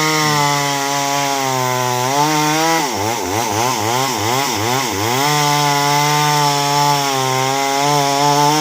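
Two-stroke chainsaw running at full throttle, cutting a log lengthwise into planks, its pitch held steady and sagging slightly under load. Between the two long cuts, a little under halfway, the revs rise and fall rapidly for about two seconds.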